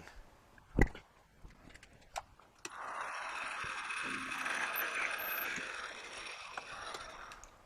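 Metal lathe running with a parting tool cutting into the spinning workpiece: a steady hissing cut that starts about two and a half seconds in and fades near the end, after a single knock about a second in.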